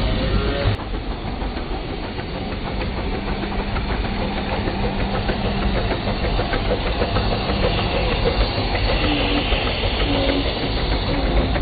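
Miniature 5-inch gauge model of the 3801 steam locomotive running along the track: steady hiss of steam over a low mechanical rumble, with many small clicks from the running gear and rails.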